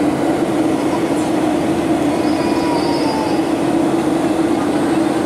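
Boeing 757-330 jet airliner cabin noise: the engines and airflow give a constant hum with a strong low drone, heard from a window seat near the engine during the descent to landing.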